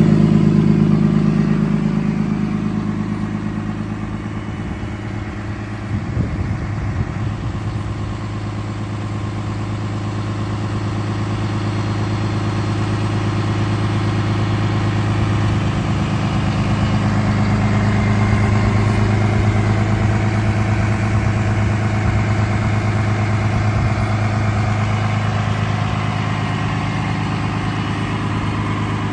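Freightliner M2 tow truck's engine idling steadily, with a few brief knocks about six seconds in.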